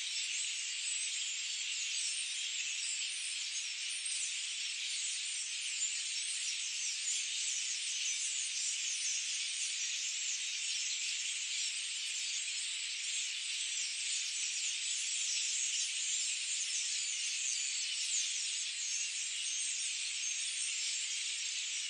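Dense chorus of many birds chirping at once, high-pitched calls overlapping into one steady, unbroken wash with no low sounds beneath it.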